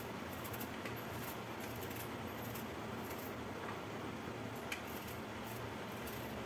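Faint scraping of a small knife peeling the ridged skin off a bitter gourd, a few short scratchy strokes, over a steady low hum.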